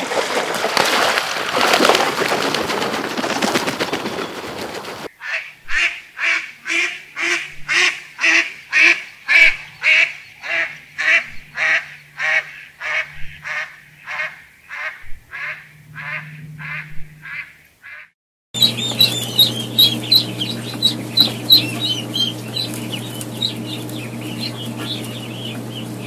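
Ducks calling. First comes a rough, noisy stretch, then a long run of loud honking quacks at about two a second that breaks off abruptly. After a brief silence come high, rapid peeping calls over a steady low hum.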